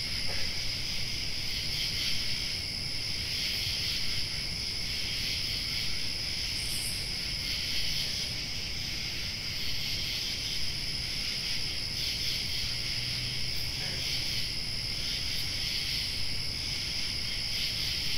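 Steady, high-pitched chorus of crickets and other night insects, unbroken throughout.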